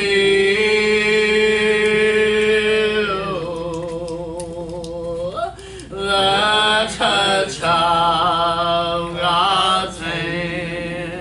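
Unamplified singing of a gospel hymn: a long held note with vibrato, then shorter sung phrases with brief breaths between lines.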